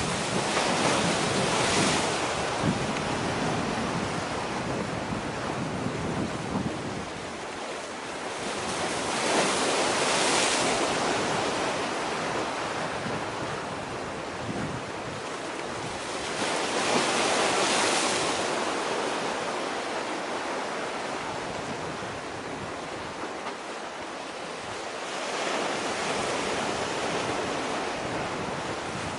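Sea waves washing in on the shore, the surf swelling and fading four times about eight seconds apart, with wind rumbling on the microphone.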